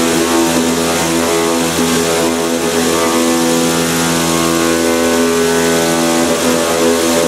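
Kimla CNC router's oscillating-knife head running as it cuts a gasket sheet: a steady, even-pitched machine hum with a hiss over it.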